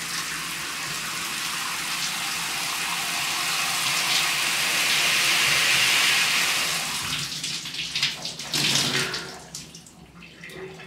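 A handheld shower running full in a tiled shower stall, a steady rush of spraying water. In the last few seconds the spray turns uneven and splashy, then is shut off, leaving dripping.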